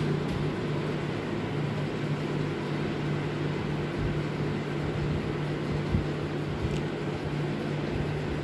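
Steady machine-like hum over an even hiss, with a single soft thump about six seconds in.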